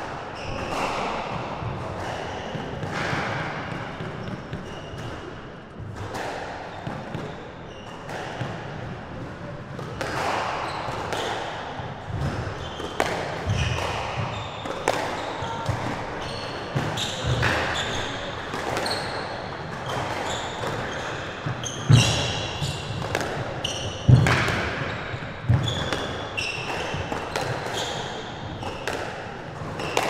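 Squash rally: the ball is struck by rackets and hits the court walls in a run of sharp knocks, mixed with short high shoe squeaks on the wooden floor. The hardest hits come about two-thirds of the way through. All of it echoes in the enclosed court.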